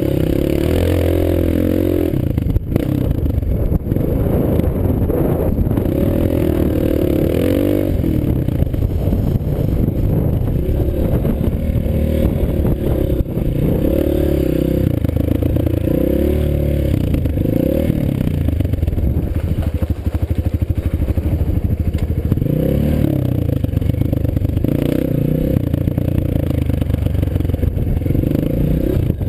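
Dirt bike engine running hard under load on a sandy trail climb, the revs rising and falling with the throttle throughout, over a steady rush of noise and chassis clatter.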